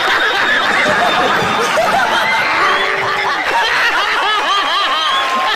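A crowd laughing loudly together, many voices at once, with clapping.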